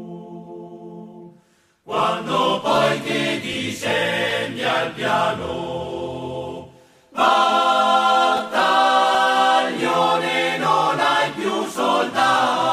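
A choir singing a slow song as background music. The voices cut out briefly just under two seconds in and dip again a little past the middle.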